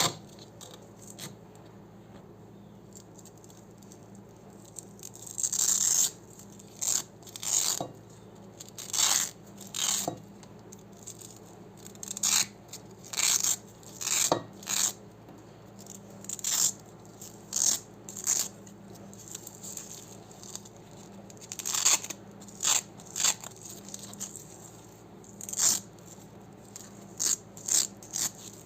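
Hook-and-loop (Velcro) strips pulled apart again and again in short, crunchy rips, about one a second. The rips start a few seconds in.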